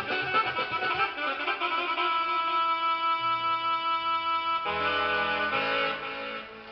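Electronic keyboard played with a violin-like sound: a quick run of notes, then a long held chord from about two seconds in, a change of chord near five seconds, and the sound dying away near the end.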